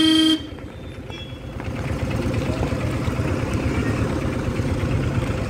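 A car horn sounds briefly at the start and cuts off, then a car engine runs close by, a steady low rumble that grows louder about two seconds in as a vehicle moves past.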